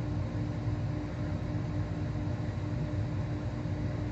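Steady low mechanical hum with a faint constant tone running through it, unchanging throughout.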